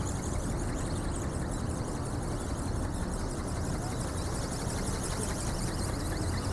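Steady low rumble of wind buffeting the camera microphone.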